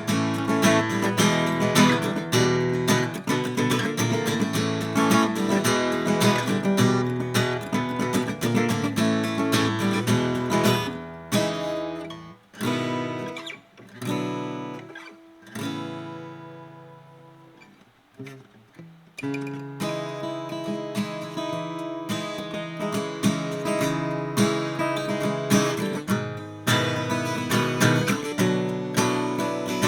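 1959 Gibson LG2 acoustic guitar being strummed and picked. Around the middle the playing thins to a few notes and a chord left ringing and fading away, then the strumming starts again.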